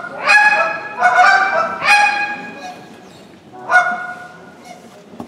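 Hand-held goose call blown by a contest caller to imitate live geese: four strong honks in the first four seconds, with short clucks between them and softer notes near the end.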